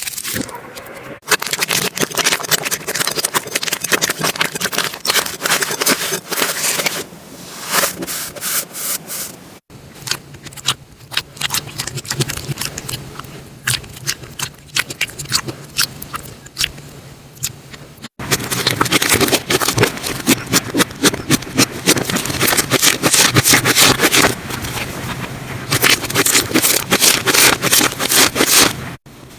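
Slime being squeezed, poked and stretched by hand, making dense crackling, popping clicks. The texture changes abruptly three times as one slime clip gives way to the next, and a faint low hum sits under the later parts.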